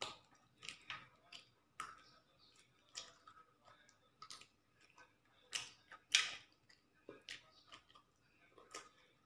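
A man chewing mouthfuls of chicken curry and rice eaten by hand, with irregular small mouth smacks and clicks.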